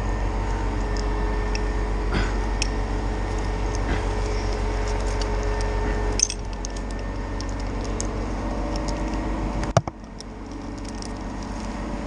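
Steel rigging chain links and carabiners clinking as the chain is handled, over the steady hum of the mobile crane's engine. The hum drops in level about six seconds in, and a single sharp knock comes just before ten seconds.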